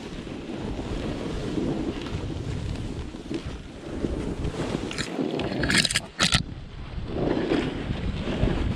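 Snowboard riding through powder in the trees: steady wind rush on the camera microphone over the board's low hiss through snow. About six seconds in, a few short, sharp scraping bursts stand out.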